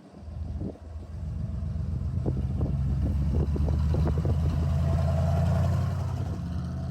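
A truck engine running, swelling in loudness over the first couple of seconds and then holding a steady low note, with some light rattling ticks.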